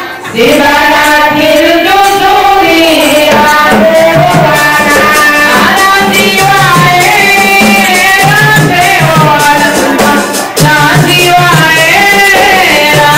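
Women singing a melody into microphones over hand-drummed percussion: a tall wooden barrel drum struck with the hands, with a second player on sticks.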